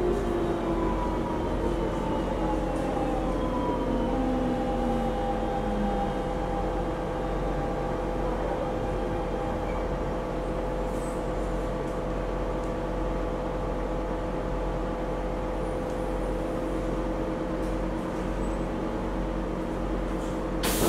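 Singapore MRT train braking into a station: the traction motors whine down in pitch over the first few seconds, then a steady electrical hum while the train stands. Near the end there is a short rushing burst as the doors start to open.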